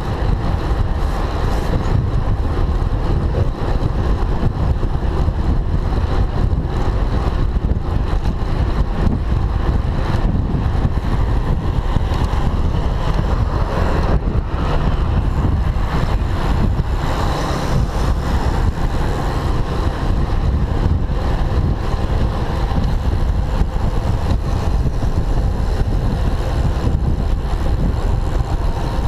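Steady wind rushing over the microphone of a handlebar-mounted camera on a moving road bike, with street traffic of cars and motorbikes underneath.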